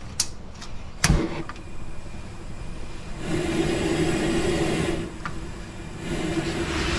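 A few sharp clicks, then a high-pressure gas burner lights about three seconds in and runs with a steady rushing sound and a low hum. It drops back for about a second, then comes up again.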